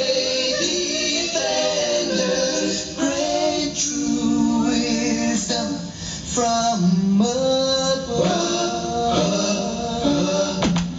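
Reggae record played from vinyl over a club sound system: sung vocals in harmony over the backing band.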